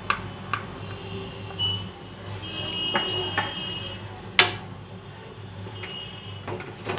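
Wooden spatula stirring cream into masala in a nonstick frying pan, with light scrapes and clicks against the pan and one sharp knock about four and a half seconds in. A faint high steady tone sounds around three seconds in and again near the end, over a low hum.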